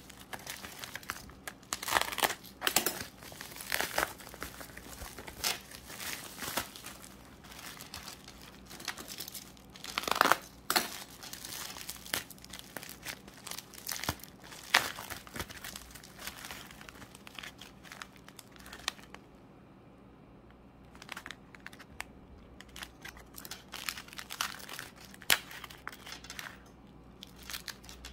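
Plastic bags and bubble wrap crinkling and rustling as nail-supply packages are unwrapped by hand, in irregular bursts with a short lull about two-thirds of the way through.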